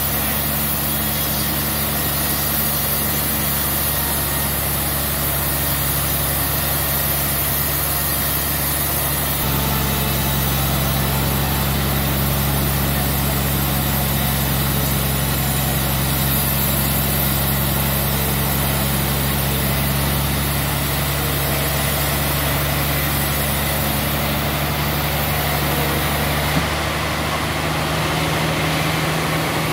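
Band sawmill machinery running steadily with a low, even engine hum. Its pitch shifts slightly about nine seconds in and again near the end.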